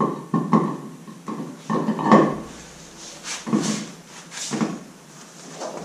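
An ATV wheel being fitted back onto its hub over a freshly mounted wheel spacer: a series of knocks and clunks of the rim against the hub and studs as it is worked into place, with the tyre scraping. One cluster of knocks comes in the first two seconds and another a little after the midpoint.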